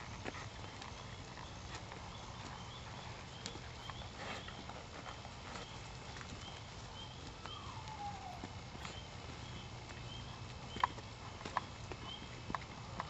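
Hoofbeats of a ridden horse walking on a soft dirt arena, over a steady hiss, with a few sharper clicks near the end and a short falling whistle about halfway through.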